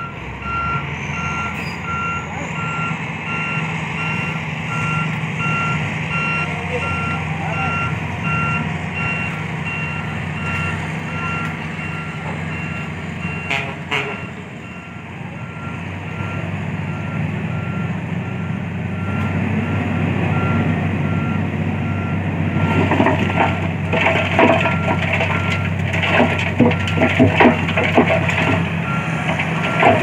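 Dump truck reversing, its backup alarm beeping steadily over the running engine. From about twenty seconds in, a dense rattling clatter builds as the raised bed tips its load of dirt and rock out onto the ground.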